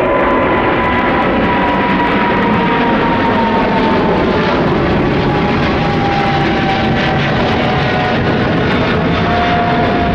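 Boeing 777-300ER's twin GE90 jet engines at takeoff power on departure: a loud, steady rumble with a high whine slowly falling in pitch.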